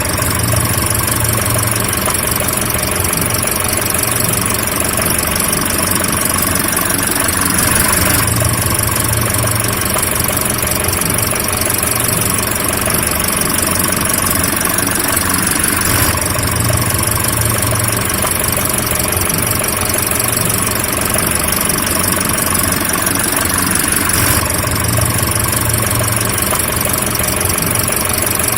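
Car engine idling steadily, with a slight shift in its tone about every eight seconds.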